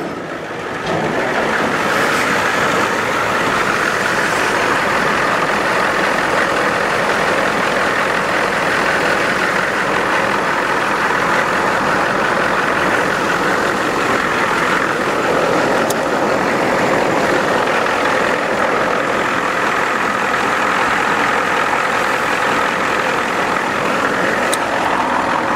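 Ford Econoline van's engine idling steadily, just started on jumper cables.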